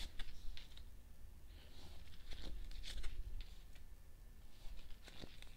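Faint papery rustles and light taps of tarot cards being handled and laid down, in scattered small clicks.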